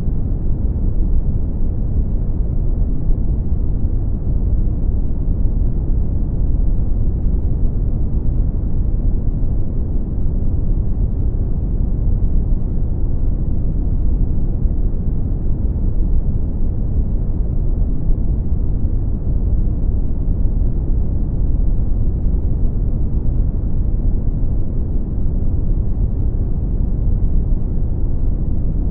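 Brown noise: a steady, deep rumbling hiss, strongest in the bass and fading out toward the treble, without change or rhythm.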